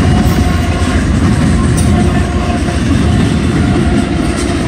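Amtrak passenger cars passing close by at speed, their wheels running steadily and loudly over the rails.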